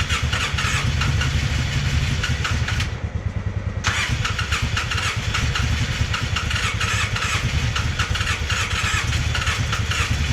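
Polaris Sportsman 600 ATV engine with almost no compression, turning over and chugging unevenly as it struggles to catch and keep running. There is a rapid rough pulse with clatter over it, and the clatter drops away for about a second near three seconds in.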